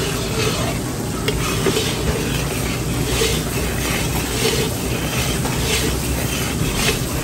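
Thick banana rhuma sauce bubbling and sizzling as it heats in a wok, stirred and scraped with a spatula in repeated strokes.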